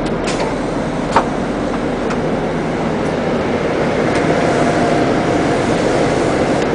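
Steady running noise of a parked rear-engine motorcoach heard inside its passenger cabin, a low rumble under a broad hiss, with a sharp click about a second in.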